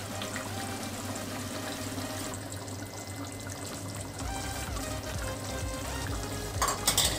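Background music over a pan of yoghurt chicken gravy simmering and bubbling. Near the end, a few sharp crackles come as dried fenugreek leaves (kasuri methi) are crumbled by hand over the pan.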